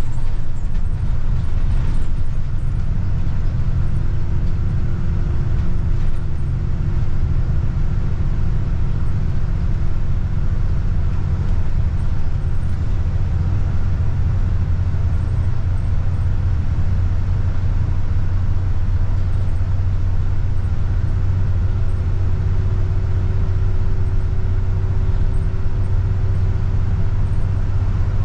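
Double-decker bus travelling at steady speed, heard from the upper deck: a constant low engine and road drone, with a faint whine that fades out and comes back about two-thirds of the way through.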